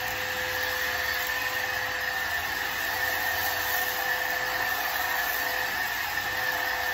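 Bissell ReadyClean 10.8V cordless stick vacuum running as it is pushed over a shaggy rug: a steady motor whine over a rush of air.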